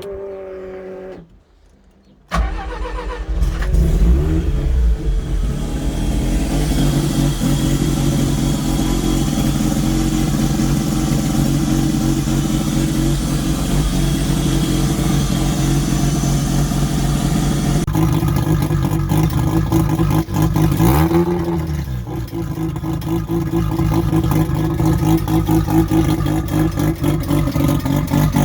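Mazda 13B turbo rotary engine cranked briefly, then firing about two seconds in and running steadily, with the sound turning choppier about two-thirds of the way through. It is on a basic untuned setup, its mixture set by ear.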